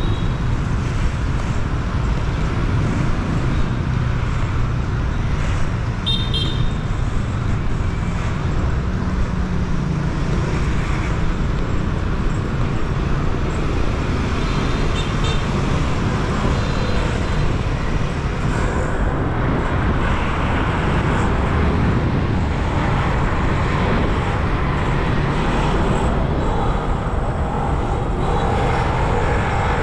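Busy city street traffic, a steady wash of engines and tyres, with a few short horn toots, one near the start and two more about six and fifteen seconds in.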